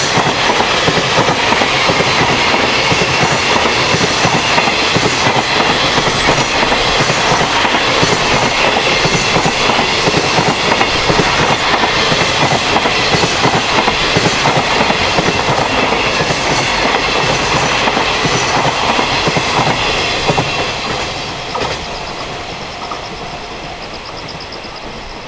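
Freight train rolling past at speed, its wagon wheels clattering steadily over the rail joints. The noise tapers off after about twenty seconds as the last wagons pass. Near the end a pulsing level-crossing alarm becomes audible.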